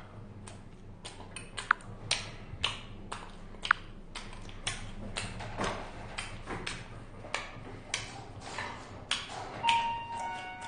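A run of sharp clicks and knocks, about two a second, with two brief pings in the first few seconds. Near the end an elevator chime sounds: a held higher tone, then a lower one.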